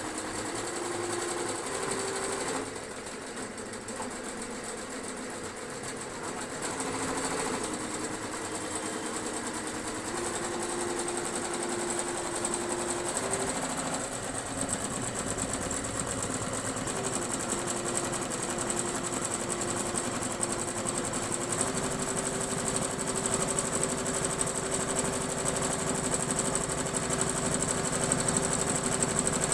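A 12-needle HSW Kartoos computerized embroidery machine stitching, a fast continuous needle chatter with a motor tone that steps up and down in pitch a few times. It runs a little quieter for a few seconds near the start.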